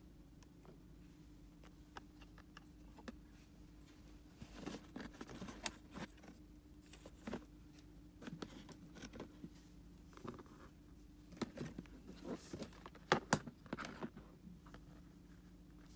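Handling noise from a CCTV tester kit being handled on a table: scattered clicks, knocks and rustles, busiest from about four seconds in, with a couple of sharper knocks near the end. A faint steady hum runs underneath.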